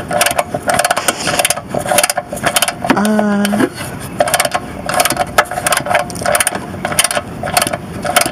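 Ratchet wrench clicking in short runs while the bolt holding a negative battery cable's ring terminal to the frame is tightened, with a short hum of a man's voice about three seconds in.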